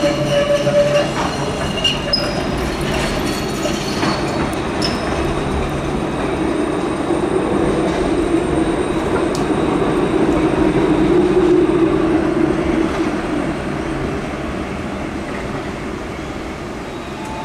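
Electric tram rolling past on street track, with a few brief high-pitched wheel squeals in the first few seconds. Its rumble grows to its loudest about two-thirds of the way through, then fades as it moves away.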